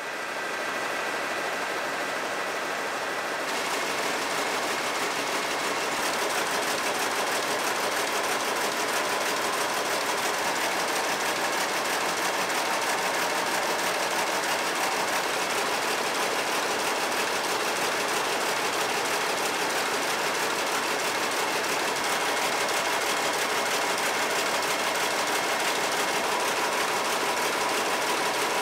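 Several power looms weaving at once, a steady fast mechanical clatter of shedding harnesses and beating reeds.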